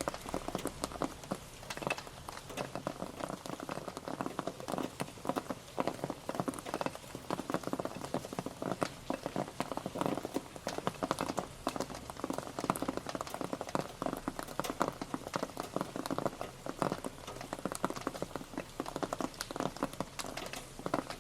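Rain pattering on a surface, a dense, uneven stream of drop ticks that keeps up without a break.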